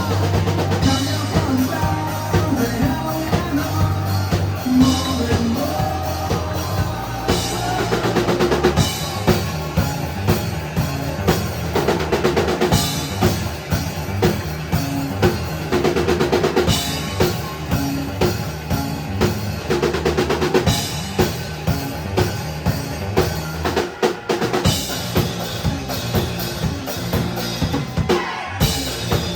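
Live rock band playing an instrumental passage, the drum kit loud over a steady bass line and guitars. The band breaks off for a moment twice near the end.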